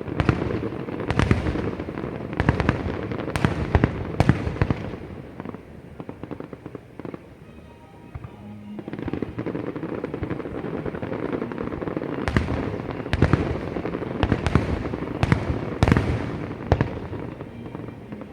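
Aerial fireworks display: shells bursting in a series of loud bangs over continuous crackling. There is a quieter lull about six to nine seconds in, then another volley of bangs.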